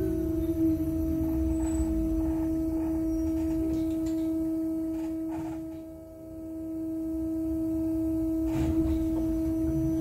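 Inside an Ursus T70116 trolleybus: the whine of its Cegelec CAC 1400N traction motor drops in pitch as it slows in the first second. A steady two-tone electrical hum then holds over a low rumble, fading down and back up briefly near the middle.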